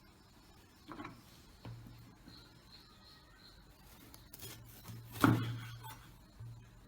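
Kitchen knife cutting a bell pepper on a cutting board: a few separate knife strokes and knocks on the board, the loudest about five seconds in.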